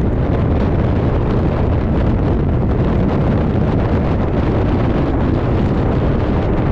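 Heavy, steady wind rushing over the microphone while riding at about 55 to 60 km/h.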